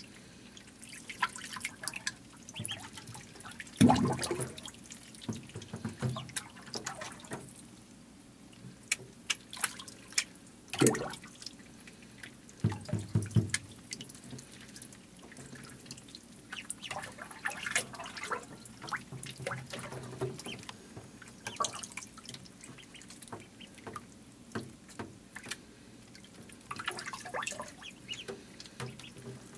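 Ducklings paddling in shallow water in a plastic tub: a constant patter of small splashes and drips, with a few louder splashes or knocks, the biggest about four seconds in.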